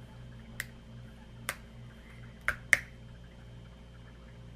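Plastic screw cap of a new liquid vitamin bottle clicking as it is twisted off for the first time: four short sharp clicks, the last two close together near the end and the loudest.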